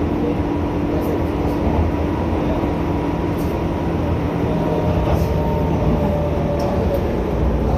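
JR 201 series electric train running between stations, heard from inside the car: a steady rumble of wheels on the rails with faint whining motor tones that shift, one fading and another coming in partway through, and a few light ticks.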